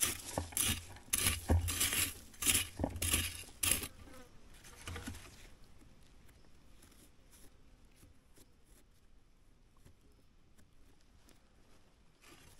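A spade or digging tool striking into forest soil, about two chopping strokes a second for roughly four seconds, one more stroke a second later, then it goes faint.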